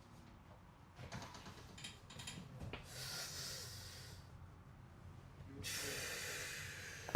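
Two long, hissing breaths from a person breathing deeply, one about three seconds in and one near the end, each lasting over a second. Light rustling and small clicks come before them, and a sharp click comes right at the end.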